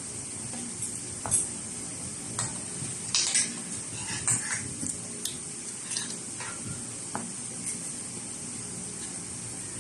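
Cutlery clinking and scraping against a plate or bowl during a meal: a run of irregular light clinks, busiest in the middle, over a steady hiss.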